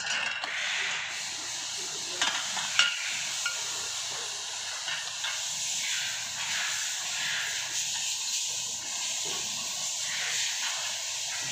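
Steady hiss, with two sharp clicks a couple of seconds in, from metal frame parts being handled.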